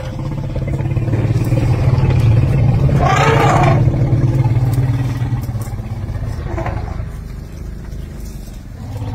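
A vehicle engine idling with a steady low hum that swells in the middle and eases off later. About three seconds in, a brief wavering voice-like sound rises and falls over it.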